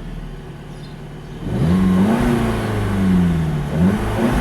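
SEAT Leon Cupra 290's turbocharged 2.0-litre inline-four being revved in Cupra mode while stationary: it idles, then the revs rise sharply about a second and a half in and sink back slowly, with a second blip starting near the end. The stationary rev limiter cuts in below 4000 rpm.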